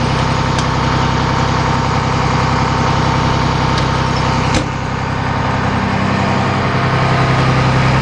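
A school bus's Cummins ISC 8.3-litre turbo diesel idling steadily, growing a little louder toward the end. A sharp metal click sounds about four and a half seconds in.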